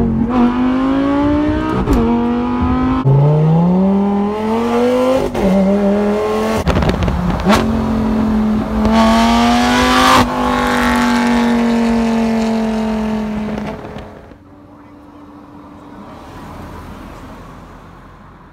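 Lamborghini engine accelerating hard, its pitch climbing and then dropping at each upshift, with sharp cracks at the shifts. It then holds a steady note and falls away to a faint hum about fourteen seconds in.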